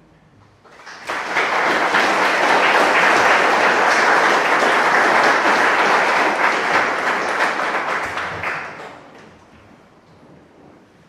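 Audience applauding, starting about a second in and dying away after about eight seconds.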